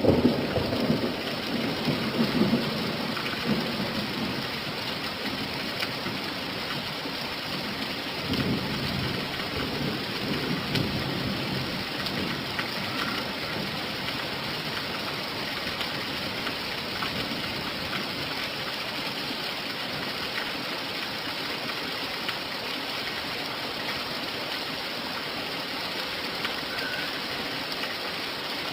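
Steady heavy rain with rolling thunder: a rumble dying away over the first few seconds and another fainter roll about eight seconds in.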